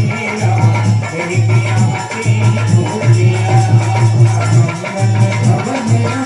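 Instrumental devotional music: a dholak keeps a steady, driving rhythm under fast jingling hand percussion, with no singing.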